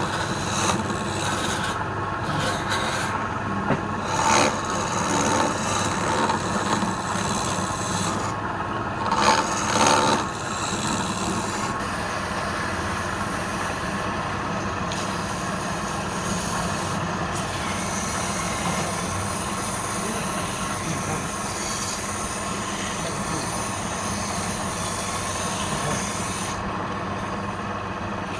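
Wood lathe running steadily, with a turning tool cutting the spinning wood in a few louder passes during the first ten seconds or so.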